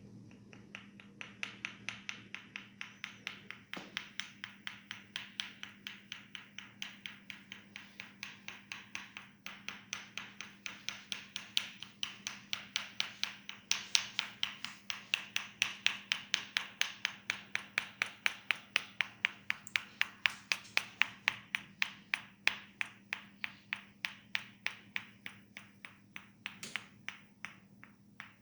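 Percussive head massage: hands striking the head in quick, even taps, about four a second, louder through the middle stretch.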